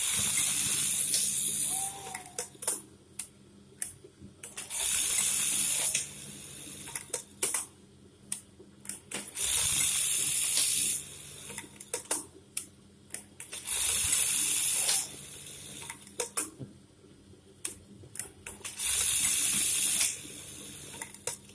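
Brother 814-2 industrial buttonhole sewing machine running its buttonhole cycles: five bursts of fast, hissing stitching, each about one and a half to two seconds and stopping cleanly, with scattered clicks in between. The run is light and smooth, the sign of a freshly set-up machine.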